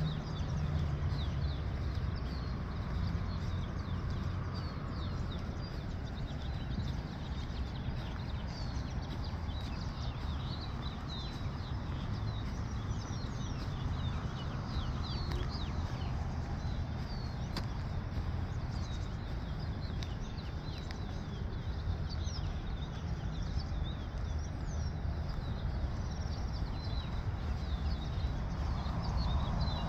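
Many songbirds chirping and singing, short high calls scattered throughout, over a steady low rumble.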